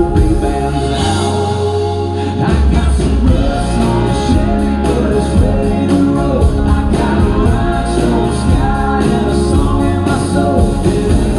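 Country band playing live: acoustic and electric guitars, bass and drums at a steady beat, with singing over them.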